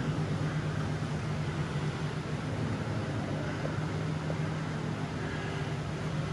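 Electric ventilation fans or air units running with a steady low hum and even hiss.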